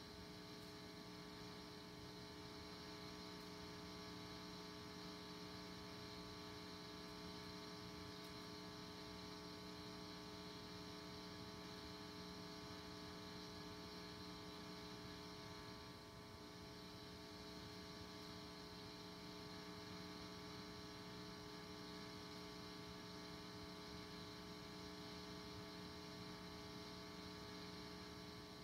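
Faint, steady electrical hum and buzz from an electric guitar's amplifier left switched on while the guitar is not being played; it cuts off abruptly near the end.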